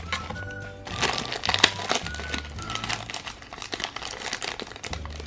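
Black foil blind bag of a Mystery Minis figure being torn open and crinkled by hand, in a dense run of crackles about one to three seconds in, over steady background music.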